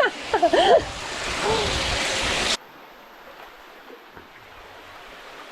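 Rushing creek water, loud and steady, with a few short voice sounds over it; it cuts off suddenly about two and a half seconds in, leaving only a faint steady hiss.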